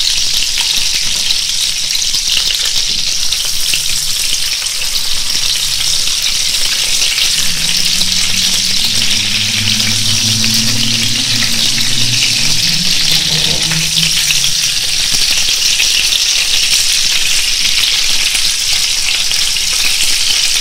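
Meatballs of minced pork and beef with rice sizzling steadily in hot oil in a frying pan, with light scrapes and knocks of a wooden spatula as they are turned over to brown the other side.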